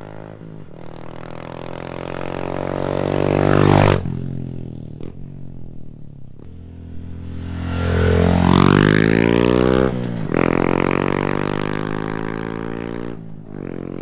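Honda Trail 125's single-cylinder 125 cc engine through a Yoshimura straight-through Cyclone race exhaust, pulling with rising revs that cut off sharply about four seconds in, then building again to a peak around eight to nine seconds before dropping near ten seconds and again near the end.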